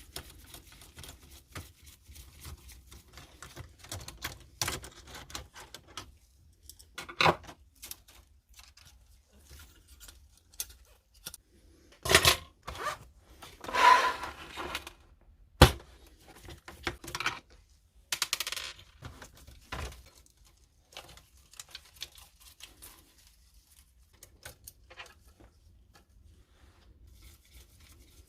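Clicks, knocks, scrapes and light rattles of plastic and small metal parts as a Canon inkjet printer is taken apart by hand. The loudest moment, about halfway through, is a sharp click, then a longer rasping scrape, then another sharp click.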